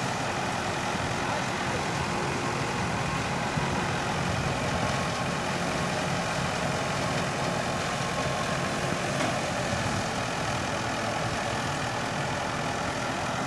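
Tractor engine driving a stationary threshing machine, a steady, unbroken mechanical drone.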